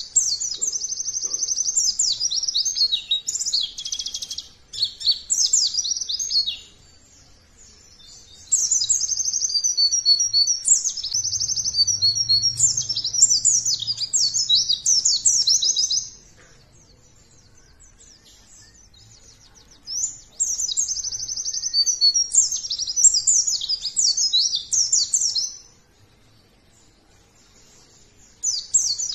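White-eye (pleci) in full song: rapid, high-pitched twittering phrases in three long bouts of several seconds each, with short pauses between them and a fourth bout starting at the very end.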